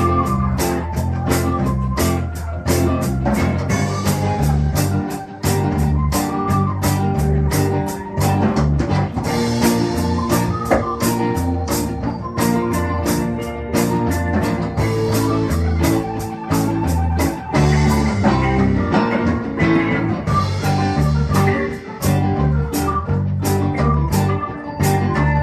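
Live band playing an instrumental break in a slow blues-soul song: guitar over bass and drums, with a steady beat.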